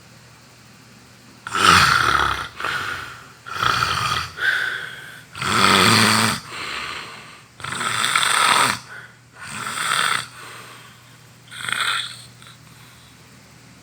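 A sleeping person snoring loudly, a rough, rasping snore on each breath, about nine snores at an uneven pace with short gaps between them.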